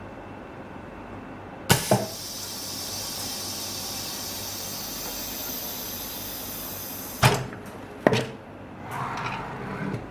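OCA vacuum laminator ending its timed cycle: a sharp click, then air hissing out for about five seconds as the chamber is vented, followed by two clunks.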